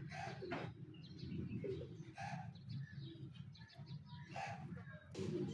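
Birds calling outdoors, with a dove cooing about every two seconds and fainter chirps in between, over a steady low hum.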